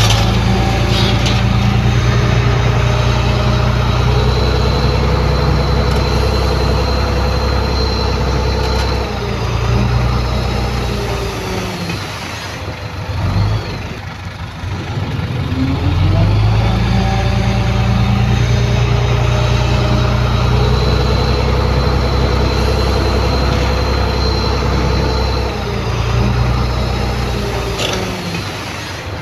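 Big diesel engine of a heavy earthmoving machine working under load, with a high whine over it. It eases off about eleven seconds in, picks up again a few seconds later, and eases off again near the end.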